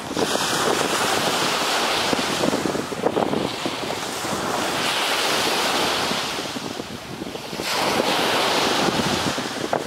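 Surf washing onto a sandy beach with wind buffeting the microphone, a steady rushing noise that eases briefly about seven seconds in.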